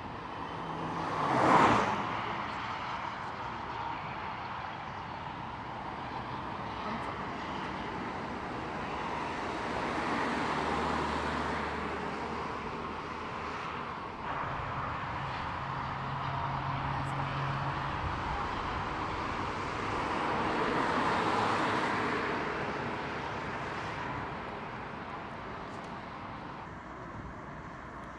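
A car driving along a road, its engine and tyre noise swelling and fading twice. There is a brief loud whoosh about a second and a half in.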